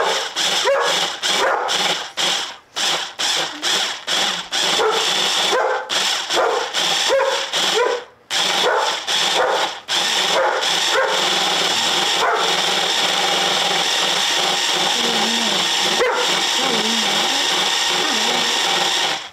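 Breville Control Grip immersion blender, set on speed 6 with its chopper bowl, pureeing peaches and chili peppers. It is pulsed on and off rapidly for about the first ten seconds, then runs steadily. A dog barks over the motor.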